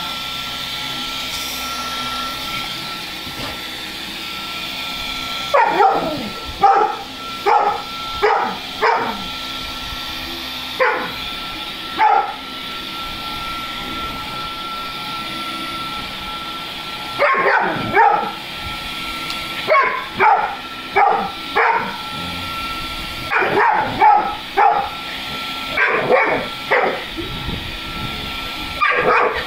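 A stick vacuum cleaner runs with a steady whine while a dog barks at it, short loud barks in several bouts starting about five seconds in, the loudest sounds throughout.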